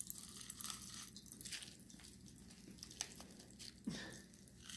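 Faint crackling of Pop Rocks popping candy going off in a mouth, a scatter of tiny sharp snaps. A short low hum of a voice comes about four seconds in.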